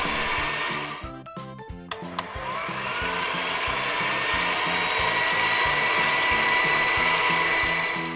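Whirring, hissing machine sound effect for an animated toy ball-popper drawing in its balls and building up, over background music with a steady beat. The whir drops out briefly about a second in, then swells again and holds.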